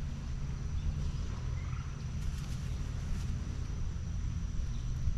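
Steady low rumble of wind and water around a bass boat, with a faint thin high whine throughout and a few faint chirps.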